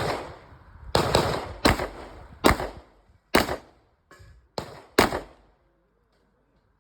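Gunshots from several firearms, about one a second: six loud shots with a short tail after each and two fainter ones between, stopping about five and a half seconds in.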